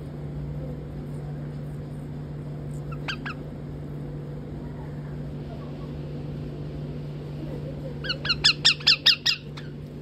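Parakeet squawking: a fast run of about eight sharp, high calls near the end, after two short calls about three seconds in, over a steady low hum.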